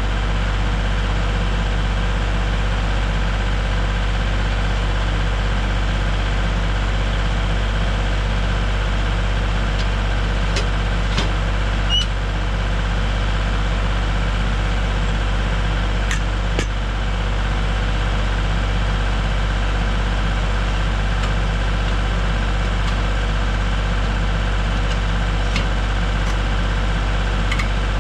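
An engine running steadily at idle, with a few light clicks or clanks over it.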